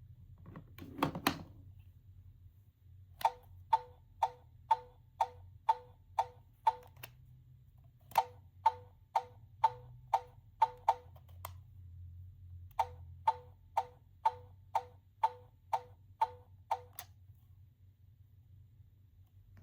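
Small gachapon car-sound toy playing a run of sharp electronic ticks, about two a second, in three runs of roughly eight ticks each. A brief knock of handling about a second in.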